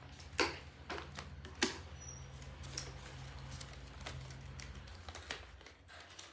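Light scattered clicks and taps of small plastic toys and packaging being handled and packed back into a box, with a faint steady low hum that stops about five seconds in.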